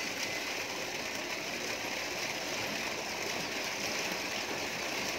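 Steady splashing and churning of water as an elephant sweeps her trunk back and forth through a bathing tank.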